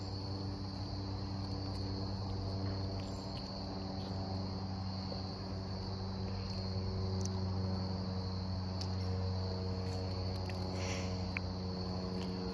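Insects trilling in one steady high tone, over a low, steady, unchanging hum.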